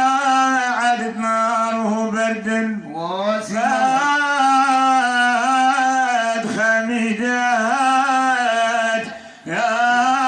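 A man singing a Moroccan madih, a Sufi devotional praise song, in long held notes with wavering ornaments, pausing briefly for breath near the end.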